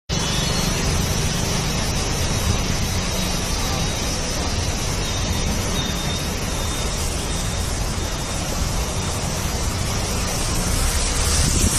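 Steady rushing noise of a car driving through a flooded street, the floodwater washing against the vehicle over a low rumble, a little louder near the end.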